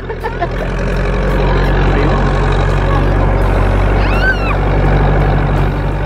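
Farm tractor engine running steadily under load, the low hum growing a little louder in the first second, with a brief high tone that bends up and down about four seconds in.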